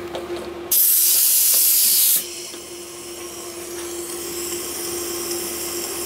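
Compressed air hissing loudly for about a second and a half as an air hose quick-connect fitting is coupled to a stud welder's pneumatic weld head. After that, a softer steady hiss of air continues.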